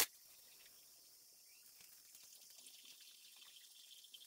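Keurig single-serve coffee maker brewing: a sharp click at the very start, then faint hissing, and near the end coffee begins pouring into the mug in a thin stream.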